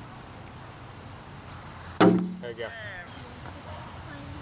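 A plastic wiffle ball strikes the wooden plywood strike-zone board once, about two seconds in: a sharp knock with a short hollow ring, the sign of a pitch taken and hitting the target. A steady high insect buzz runs underneath.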